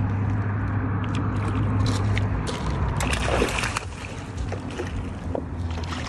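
Lake water sloshing against shoreline rocks, with a louder splash about three seconds in, over a steady low hum.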